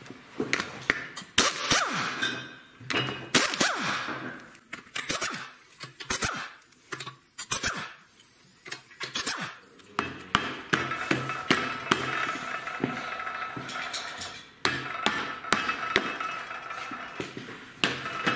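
Mallet knocking on a Porsche 915 transmission case on a stand: a series of sharp knocks at uneven intervals, tapping the housing loose during disassembly.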